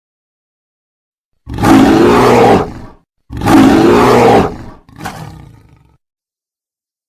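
Roar sound effect for a walrus-dog creature: two loud, rough roars of about a second and a half each, then a shorter, fainter one that trails off.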